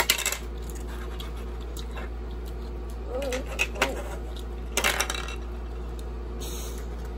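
Clicks and light clatter of food containers and plastic utensils handled on a table, in three short clusters: at the start, around three to four seconds in, and about five seconds in.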